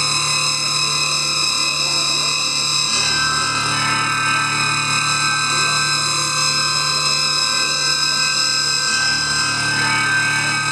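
Live noise-rock drone: distorted electric guitar through effects, a dense wash of held tones and hiss with no beat. One of the held tones changes pitch about four seconds in.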